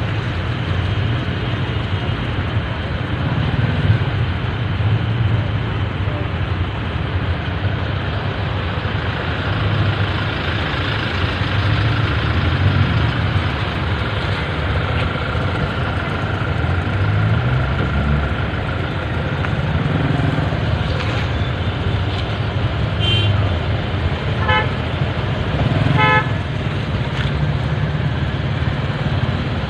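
Busy street traffic heard from a slow-moving vehicle: a steady engine rumble with road and wind noise, an engine revving up once around the middle, and a few short horn toots in the last third.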